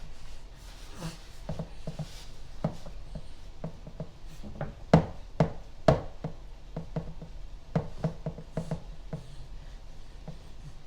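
Irregular light knocks and clacks of objects being handled and set down, the loudest few about halfway through.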